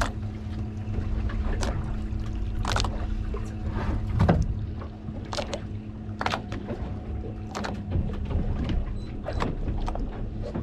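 Boat at sea: a steady low hum of idling outboard motors with a low wind rumble, and scattered short knocks every second or two.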